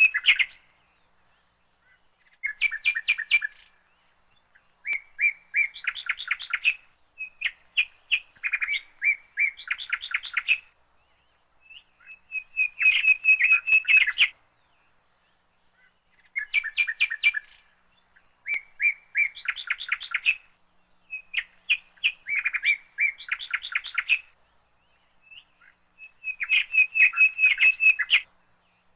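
Bird chirping in repeated bursts of rapid notes, each burst one to three seconds long with short pauses between.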